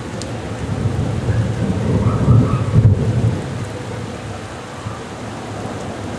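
Heavy downpour hissing steadily, with a roll of thunder that swells about a second in, peaks near the middle and fades away.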